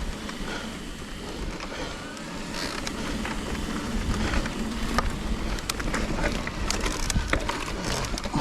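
Trek Rail electric mountain bike riding over a dirt trail: steady tyre and wind noise, with more and more sharp clicks and rattles from the bike and trail debris after about halfway.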